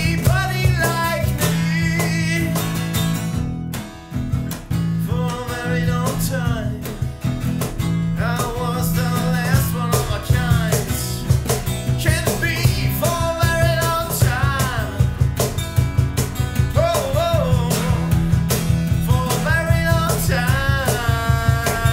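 Acoustic rock band playing live: a male lead vocal sung over strummed guitar, bass guitar and a cajon keeping a steady beat. The music thins briefly about four seconds in, then carries on.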